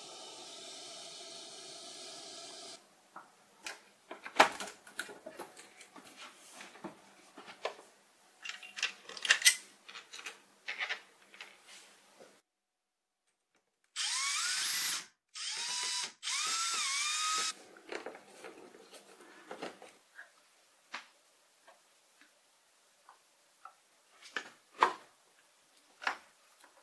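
Cordless drill-driver driving screws into a 3D-printed plastic case: two short runs about 14 seconds in, its motor whine rising and falling as the trigger is worked. Around it come small clicks and taps of parts being handled and fitted, after a steady hiss at the start.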